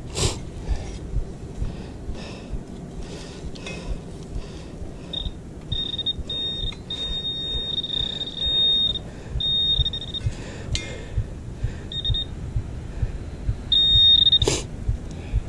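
Metal-detecting pinpointer giving a high, steady beep in on-off bursts from about five seconds in until near the end, signalling a metal target in the soil, here a .303 cartridge case. Under it, scraping and digging in soil with a hand digger, with a sharp knock at the start and another near the end.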